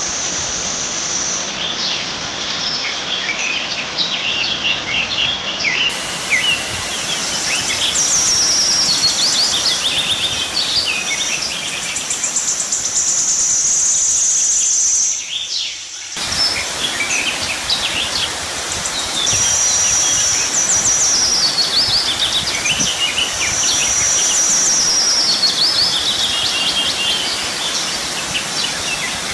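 Several birds singing and calling in quick trills and chirps over a steady outdoor hiss. The sound dips briefly about halfway through, then resumes.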